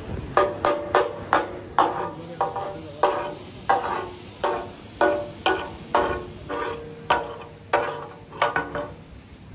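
Two steel spatula blades chopping and striking on a large iron tawa griddle, a quick run of ringing metal clangs about two to three a second that stops near the end. This is the clatter that gives chicken katakat its name.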